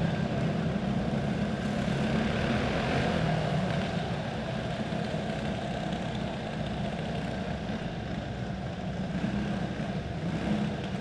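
Several quarter midget race cars' single-cylinder four-stroke Clone engines running together as they lap a dirt oval, a steady engine drone that eases off slightly about four seconds in.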